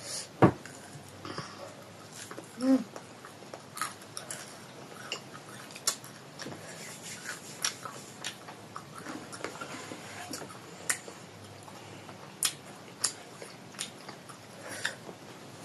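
Close-up chewing and biting of a fatty piece of pork, with many scattered wet mouth clicks and smacks. A single sharp knock comes about half a second in.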